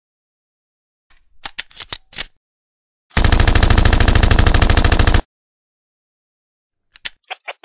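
Machine-gun sound effect: a few sharp clicks or single cracks about a second in, then a loud burst of rapid automatic fire lasting about two seconds, starting about three seconds in. A lone click comes near the end.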